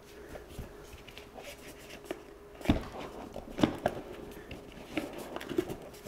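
Hands handling a cardboard product box: scattered light taps, rubs and clicks against the box, a few sharper ones in the second half, over a faint steady hum.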